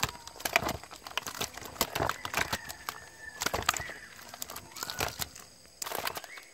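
Live catfish thrashing in a shallow plastic basin of water, with irregular splashes and sharp slaps against the plastic as salt and vinegar are poured over them. A plastic vinegar sachet crinkles as it is squeezed at the start.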